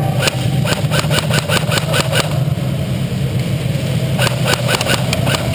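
Airsoft guns firing two quick strings of sharp, snapping shots, about six a second, the first lasting about two seconds and the second starting about four seconds in, over a steady low hum.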